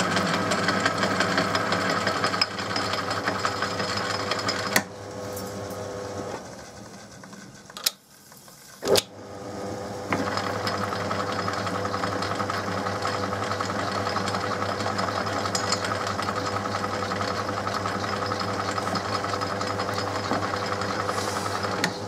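Metal-working lathe running with a four-jaw chuck spinning while an M6 thread is power-tapped into an aluminium block with a hand-held tapping holder. The running sound drops away about five seconds in, two sharp clicks follow, and the lathe picks up again about ten seconds in. It then runs steadily until it stops near the end.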